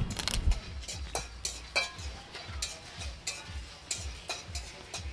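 Metal spatula stirring and scraping whole spices (dried red chillies, cumin, coriander seed and panch phoron) as they dry-roast in a metal kadai, in irregular scrapes and clinks.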